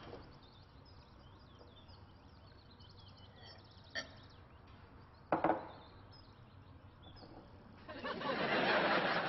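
A small click and then a sharp thump in otherwise quiet room tone, followed near the end by a loud spluttering spray: a mouthful of milk being spat out.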